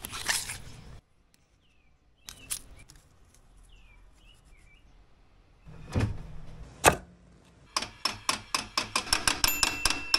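A rustle in the first second, then a quiet stretch with a few faint bird chirps. About six seconds in come two knocks, then a run of sharp clicks that comes faster and faster, from a Jeep's rear JK Dana 44 axle with a TORQ automatic locker as its wheel is spun.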